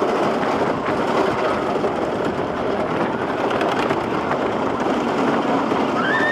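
Wooden roller coaster train running along its track, heard from a rider's seat: a steady rumbling clatter of wheels on the wooden track, with faint high squeals near the end.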